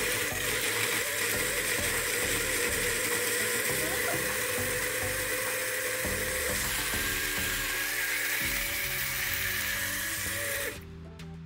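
Xiaomi Mijia Pinlo battery-powered 70-watt portable blender running, its blades churning chopped tomatoes and peppers with no added liquid, a steady whir that cuts off suddenly near the end.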